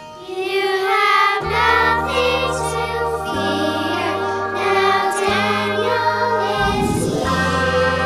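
A group of children singing a song together over an instrumental accompaniment, its held bass notes changing about every two seconds.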